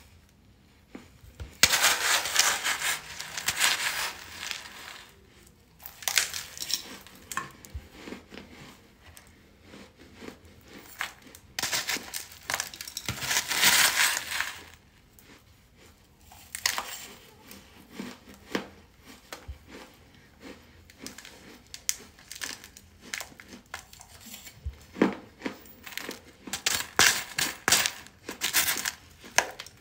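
Crunching and crumbling of hardened baking soda chunks worked with a metal spoon in a plastic container, in two long bursts of dense crunching early on and around the middle, then many short crackles and clicks near the end.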